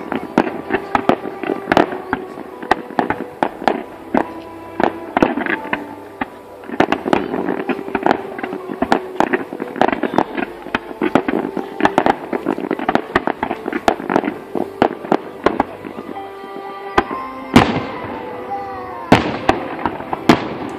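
Fireworks display: a rapid, dense crackling and popping of many small shots, with music playing underneath. About three-quarters of the way in, several louder aerial shell bursts go off, each followed by an echoing tail.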